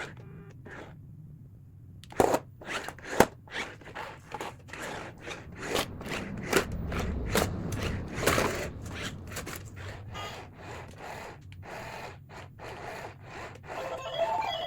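Hands unpacking and handling a die-cast toy car and its packaging: irregular clicks, scrapes and rubbing, starting about two seconds in.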